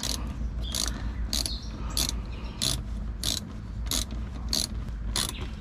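Hand ratchet with a 5/16-inch socket tightening a hose clamp on the air intake tube, clicking in short bursts about every two-thirds of a second, one burst per swing of the handle.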